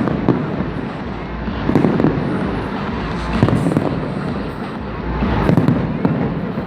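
Fireworks display: a continuous rumble of bursting shells and crackle, with louder bangs about every two seconds.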